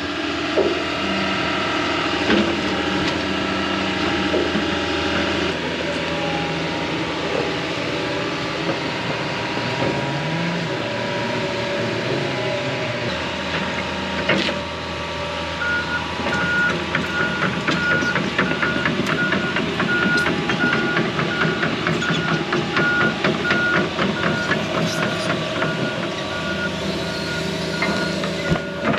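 Diesel heavy equipment running steadily. About halfway through a backup alarm starts beeping about twice a second and keeps on almost to the end, over a fast clatter of metal.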